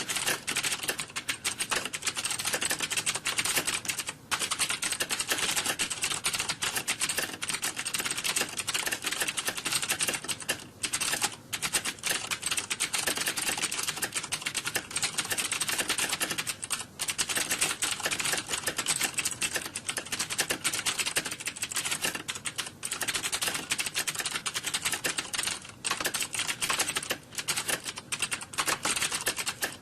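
Many computer keyboards being typed on at once, a dense, continuous clatter of key clicks with only brief pauses, like a typing exam room.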